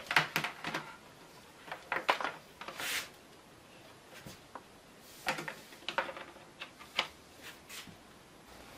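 Laptop power cord and adapter being handled and plugged in: scattered rustles, clicks and light knocks of cable and plugs against a wooden table, in several short spells of a second or so with quiet between.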